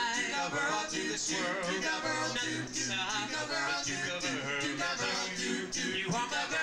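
Male vocal group singing doo-wop harmony, several voices holding and bending long notes.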